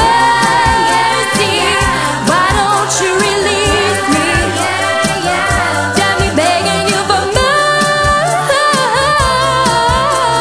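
A cappella vocal group singing a pop song in layered harmony over a steady beat.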